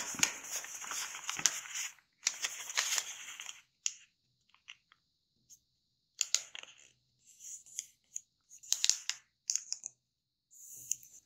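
A square of kami origami paper being folded by hand. The paper rustles for the first few seconds as its edge is brought over to the centre, then gives short, scattered scrapes and ticks as fingers run along and crease the fold flat.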